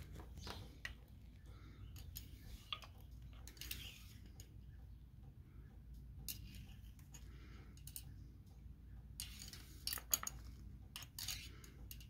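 Faint clicks and light metal scraping as a gloved hand works the dipstick in and out of a Honda GL1800 Gold Wing engine's oil filler to check the oil level, with the engine shut off. The sharpest clicks come about ten seconds in.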